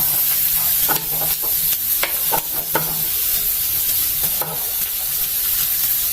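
Fried-rice ingredients sizzling in hot oil in a karahi, with the spatula scraping and clinking against the pan several times as it is stirred.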